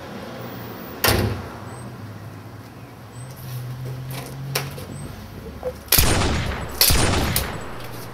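A front door shuts with a thud about a second in. Near the end come two loud handgun shots less than a second apart, each echoing off.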